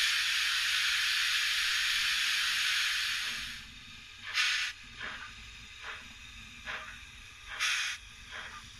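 Steam locomotive sound from a model's DCC sound decoder playing through a small sugar cube speaker: a long, loud steam hiss that stops about three and a half seconds in. Slow exhaust chuffs follow, about one a second, as the model engine moves off.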